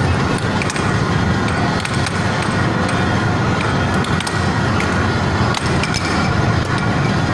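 Air hockey puck clacking against plastic mallets and the table's rails at irregular intervals, a sharp click every second or so, over a steady loud background din.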